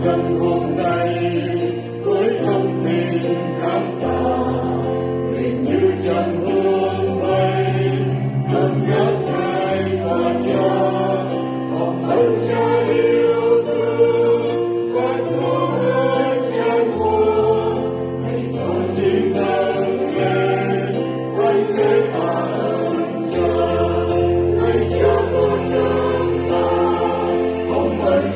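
Mixed church choir of men and women singing a Vietnamese Mass setting in harmony, over an accompaniment of long held bass notes that change every few seconds.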